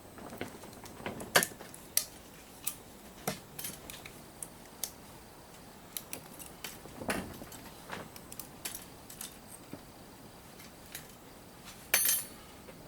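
Small metal and plastic parts of a surge protector clicking and clinking as it is taken apart for scrap copper and brass. The clicks come irregularly, with a sharper one about a second in and a brief rattle near the end.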